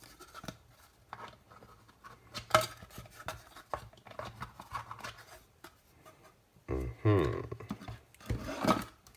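Plastic case halves and parts being handled and fitted together by hand: small irregular clicks, taps and rustles, then two louder scraping, rubbing passes near the end.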